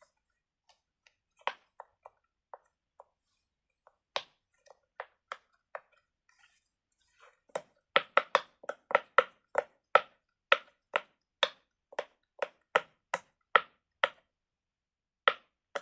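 A medium-sized skull-shaped silicone pop-it fidget toy being pressed bubble by bubble. A few faint pops come first, then a steady run of sharp pops, about three a second, from about eight seconds in.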